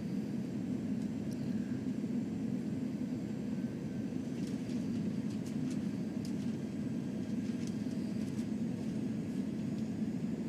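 Steady cabin noise inside an Airbus A340-300 airliner in flight: an even low rumble of airflow and its four CFM56 turbofan engines, with a few faint light ticks near the middle.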